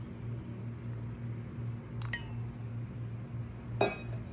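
Milk being poured into a steel mixer-grinder jar over soaked semolina and flattened rice, giving a soft wet squish, over a steady low hum. Two short metallic clinks come about two seconds in and near the end.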